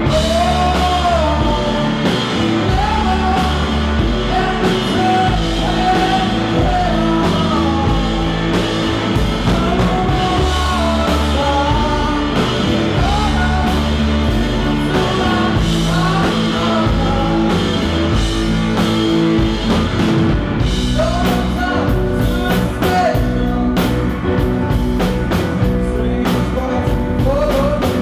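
Live blues-rock band playing: a male lead vocal sings over electric guitar, drum kit and Nord C1 organ.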